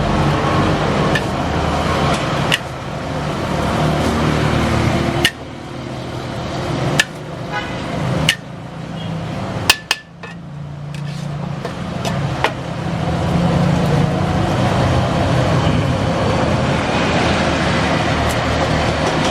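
Sharp metal clanks of a spatula striking a wok while noodles are stir-fried, coming every second or few seconds over a steady noisy background.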